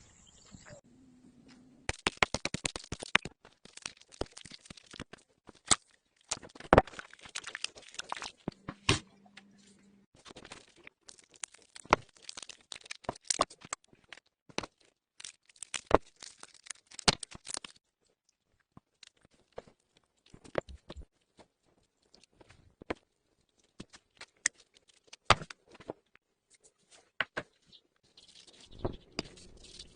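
Close-up food-preparation handling sounds: irregular crinkling, tearing and light clicks, busy through the first half and sparser in the second half.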